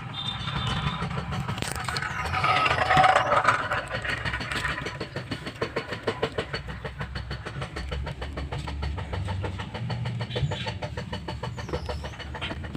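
Close handling noise of car wiring under a dashboard: rapid clicking, crackling and rustling of wires, plastic trim and metal, loudest a couple of seconds in, over a steady low rumble.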